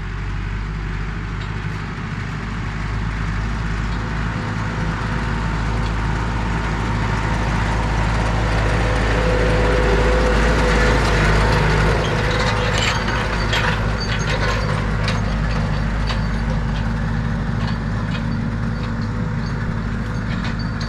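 Tractor engine running steadily, with a spell of metallic clattering from the towed implement in the middle.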